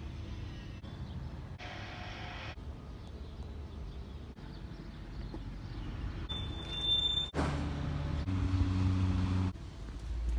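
Outdoor ambience with a steady low rumble. After an abrupt change about seven seconds in, a louder engine hum takes over.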